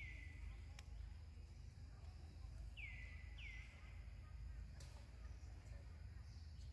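Faint outdoor background with a steady low rumble and three short, high chirps that each drop in pitch: one at the start, then two close together about three seconds in. A couple of faint clicks come in between.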